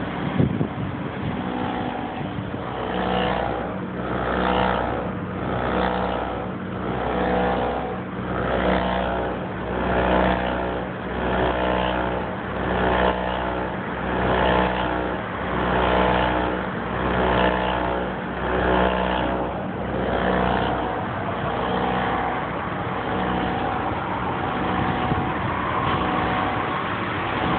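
NCR cash machine giving off a scary sci-fi noise: a layered tone that swells and fades about once every second and a third over a pulsing low hum. Near the end it settles into a steadier drone.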